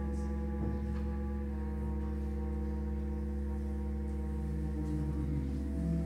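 Background music: sustained held chords over a steady low drone, the chord changing about a second and a half in and again near the end.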